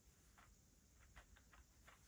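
Near silence: faint room tone with a handful of soft, light ticks, mostly clustered about a second in.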